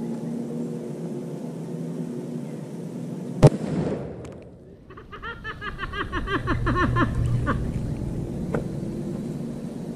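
A single .308 rifle shot about three and a half seconds in, with no Tannerite detonation following it: the Tannerite failed to ignite. A few seconds of rapid fluttering noise follow the shot.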